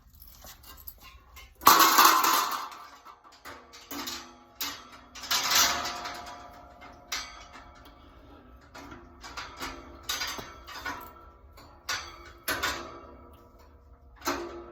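Irregular clanks and clatter of metal display-rack parts being handled and fitted, several with a short metallic ring; the loudest comes about two seconds in.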